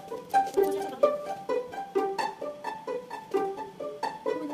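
Background music: a light plucked-string melody of short, quickly fading notes, about three or four a second.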